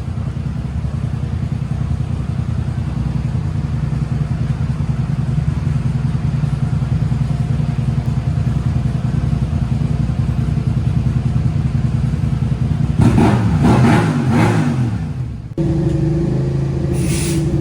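A motorcycle engine running steadily at low speed. About 13 seconds in, its pitch briefly rises and falls. It cuts off abruptly and is replaced by a steadier, more even hum.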